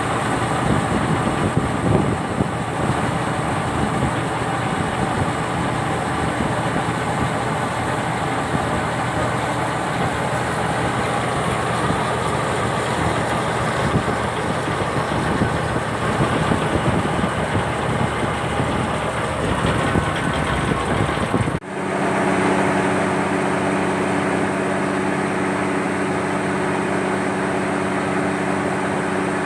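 Turbocharged truck engine powering a boat, running steadily. About three-quarters of the way through the sound breaks off abruptly and resumes as a smoother, evenly pitched engine hum.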